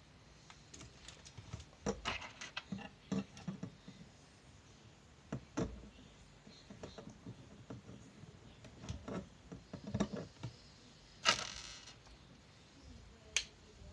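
Plastic LEGO Bionicle pieces being handled and snapped together: scattered clicks and short rustles, with a louder rustling clatter about eleven seconds in.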